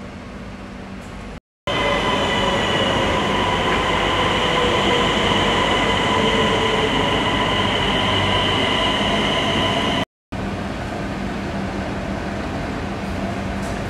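SJ electric passenger train running into the platform and slowing, with a steady high squeal over a rumble and a slowly falling whine. After a brief break the sound settles to a quieter, steady rumble and hum.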